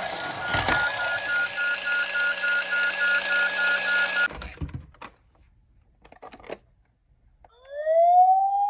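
Toy emergency-vehicle minicar running: a steady mechanical whirr with a fast two-note electronic beep, cut off suddenly about four seconds in. After a few clicks, a siren starts near the end, winding up in a rising wail.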